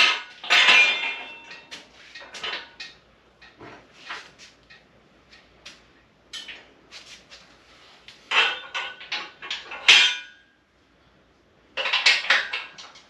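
Steel parts of a Pittsburgh 1-ton foldable shop crane clanking and rattling as it is handled and folded up. There are bursts of metal clatter about half a second in, again around eight to ten seconds in, and near the end, with lighter knocks between them.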